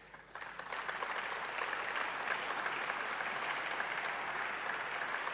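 Audience applauding, starting a moment in and holding steady throughout.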